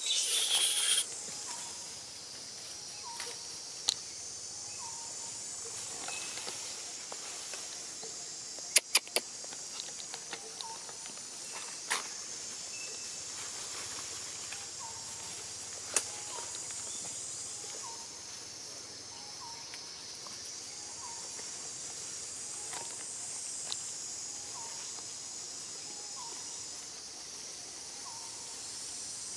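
Steady high-pitched insect chorus of a tropical forest, with a few sharp clicks scattered through, a quick cluster of them about nine seconds in. Faint short chirps repeat every second or two underneath.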